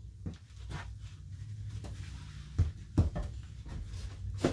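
Heavy metal turbocharger parts being handled, set down and picked up from a cluttered floor: a string of separate knocks and clunks, the loudest a pair about two and a half to three seconds in, over a low steady hum.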